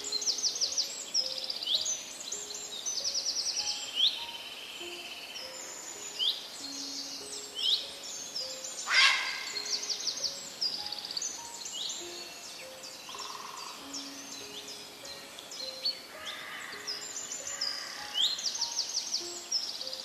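A dense chorus of many birds chirping, trilling and calling over one another, with one louder call about nine seconds in.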